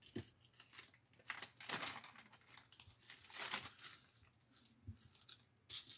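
Clear plastic bag crinkling in faint, irregular rustles as paper die-cut pieces are slid back into it.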